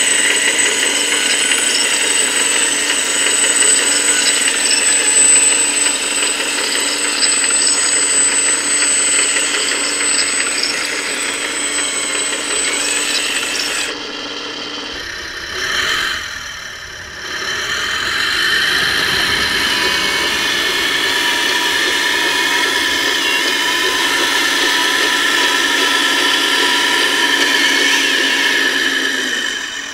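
Steady electric whine and gear noise of radio-controlled scale construction machines at work, including a hydraulic excavator's pump. About halfway through the whine changes, drops briefly, then comes back with a different set of steady tones.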